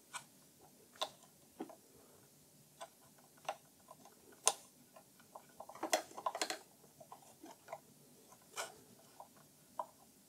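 Scattered small clicks and taps, with a quick cluster of them about six seconds in, from hands fitting a firmware update module onto the pin connector on an electric unicycle's motherboard.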